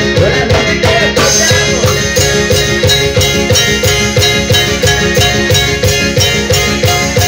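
Loud Ecuadorian folk dance music for zapateo, with a steady quick beat, growing brighter about a second in.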